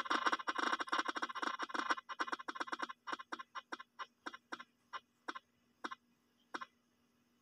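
Spinning-wheel picker app's tick sound through a phone speaker: rapid clicking that slows as the wheel loses speed, spreading out into single ticks nearly a second apart as it comes to rest.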